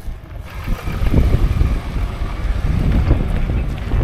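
A four-wheel drive running off-road with a low rumble, mixed with heavy wind buffeting on the microphone; the noise builds over the first second and then stays loud.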